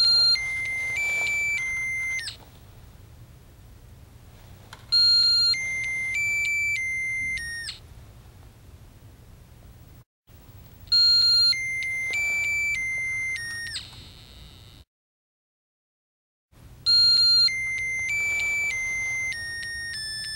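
Electronic melody module beeping out a short electronic tune in four brief bursts of about two and a half seconds each, with quiet between them. It is powered by a homemade three-cell vinegar battery, so it plays while the circuit is closed and stops when a metal scrubber is lifted out of the vinegar and the circuit is broken.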